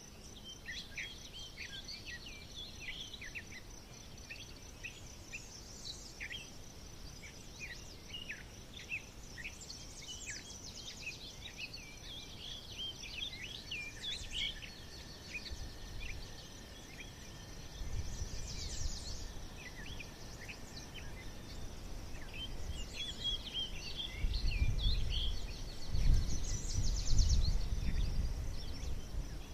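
Forest songbirds singing, many quick chirps and trills overlapping, over a steady high-pitched insect drone. Low gusty rumbles come in about two-thirds of the way through and are loudest near the end.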